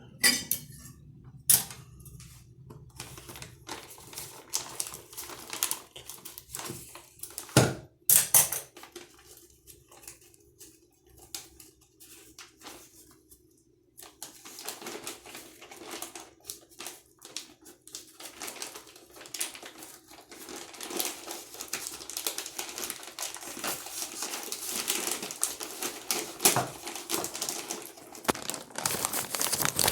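Plastic packaging of a toilet repair kit being handled and worked open: scattered clicks and taps at first, then denser crinkling that grows louder from about halfway through.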